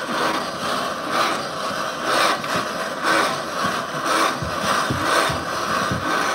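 Two-speed hand-cranked blender whirring as its blades blend a liquid mix, surging about once a second with each turn of the crank.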